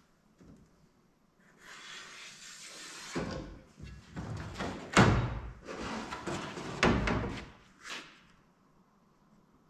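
Scraping and rustling with several heavy knocks, the loudest about five seconds in.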